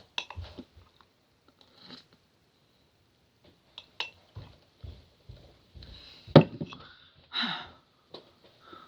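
Scattered small eating noises, soft clicks and chewing, with one sharp knock about six seconds in and a short sniff soon after.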